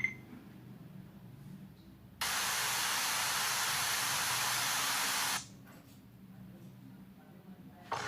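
A steady, even hiss lasting about three seconds, starting about two seconds in and cutting off suddenly, over a faint low hum. A short sharp knock comes near the end.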